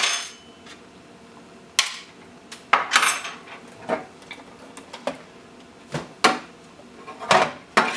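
About ten sharp clicks, taps and clinks, unevenly spaced, as small hard parts and tools are handled around an e-bike's battery bay.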